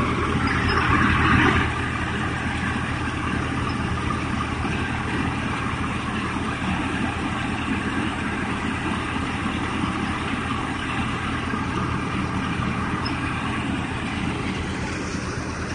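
Tractor engine and the belt-driven mustard threshing machine it powers, running steadily as dried mustard plants are fed in.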